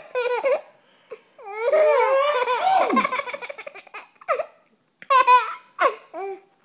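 A young child laughing in short high-pitched bursts, with one long laugh whose pitch swoops up and down about a second and a half in.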